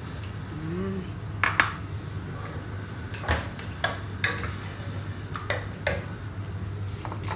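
A ladle knocking and scraping against the side of a cooking pot as a thick tomato sauce is stirred: about nine sharp, irregular clacks over a low steady hum.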